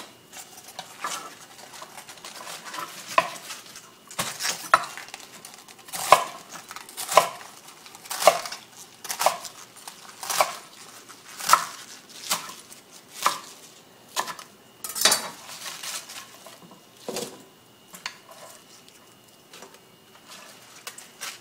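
Kitchen knife chopping bok choy on a cutting board: slow, even cuts, each a sharp knock on the board, about one a second.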